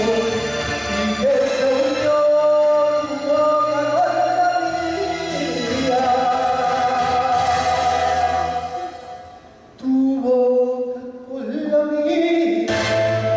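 Male singer performing a Spanish copla into a hand microphone over instrumental accompaniment. A long held note in the middle fades away briefly before he takes up the next phrase.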